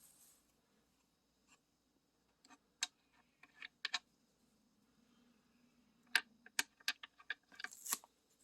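Small hard parts being handled on a workbench during water-block assembly: scattered sharp clicks and taps, a few at first and a quicker run of them in the second half, with brief rustles at the start and near the end.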